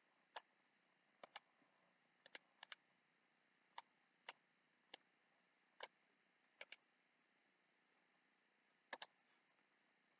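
Computer mouse button clicking: about fourteen sharp clicks, some single and some in quick pairs, at uneven intervals, with near silence between them.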